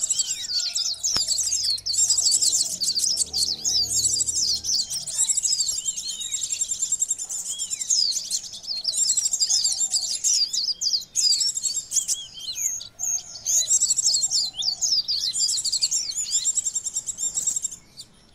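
A bird-lure recording of kolibri ninja (van Hasselt's sunbird) calling excitedly, in dense high-pitched chirps and fast trills. Many birds seem layered together, and the calling comes in phrases of a few seconds with short breaks between them.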